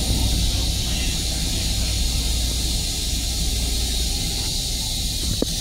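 Toilet of an M7 railcar restroom flushing: rinse water hisses steadily around the stainless bowl and drains, over a low steady rumble, with a short click near the end.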